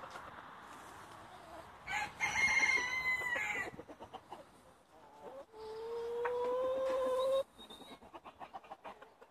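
Roosters crowing twice: a higher-pitched crow about two seconds in, then a lower one a few seconds later, each under two seconds long. Hens cluck softly around them.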